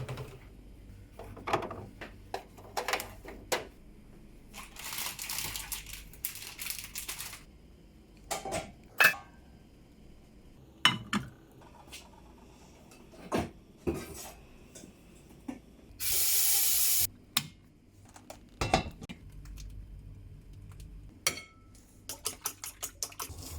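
Dishes and food containers being handled: scattered knocks and clinks, with two stretches of hissing, a softer one of about two seconds early on and a louder one of about a second past the middle.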